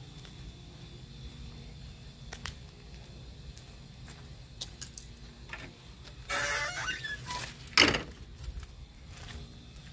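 Wooden fence gate being handled: a scraping creak about six seconds in, then one sharp knock of wood, the loudest sound. A few light clicks come before it over a low steady rumble.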